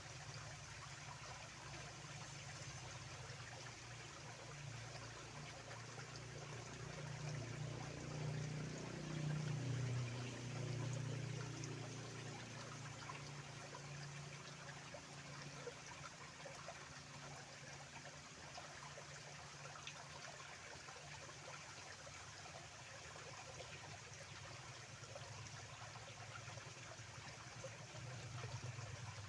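Small stream flowing and trickling steadily, growing louder and deeper for a few seconds about a third of the way in.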